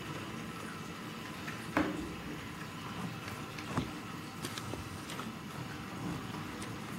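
H0-scale model train (an electric locomotive with coaches) running past on the track: a steady motor and wheel hum with scattered clicks of the wheels over rail joints, two sharper clicks about two seconds apart.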